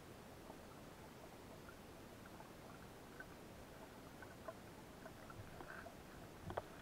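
Faint, muffled water noise heard through an action camera's waterproof housing at the water's surface, with scattered small pops and a sharper click near the end.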